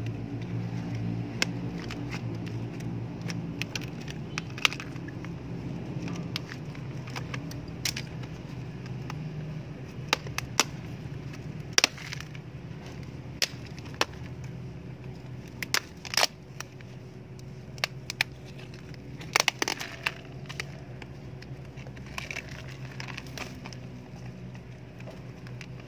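A brittle plastic planter cracking and snapping as it is pulled apart by hand, in scattered sharp cracks at irregular intervals. A steady low hum runs underneath.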